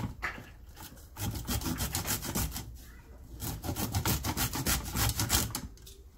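Raw broccoli florets grated by hand on a small metal grater against a ceramic bowl: quick, rhythmic rasping strokes in two runs, with a short lull about a second in and another around three seconds in.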